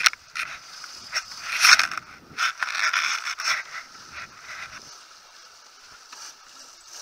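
Clothing and gear rustling and scraping close against a helmet camera's microphone as the wearer moves about a sailboat's deck, with a few sharp clicks and knocks. It eases off after about five seconds.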